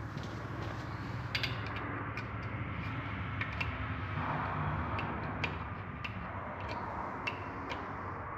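Scattered light metallic clicks and taps as a bolt-stretch gauge is handled on an engine bolt and read during torquing, over a steady low hum.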